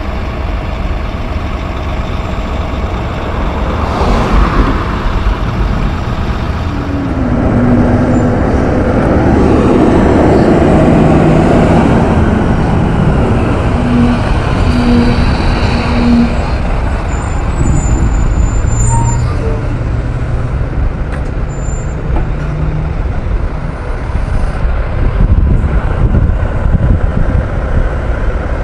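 Heavy Mack diesel truck engines running under load, the engine note shifting in pitch and swelling loudest around ten seconds in, with a short burst of air hiss about four seconds in.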